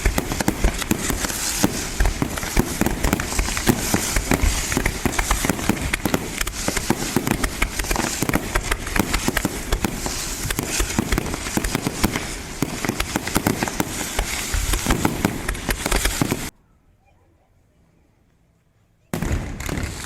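Fireworks display: a dense, continuous volley of rapid bangs and crackling. It cuts off abruptly about sixteen seconds in, and the bangs resume about three seconds later.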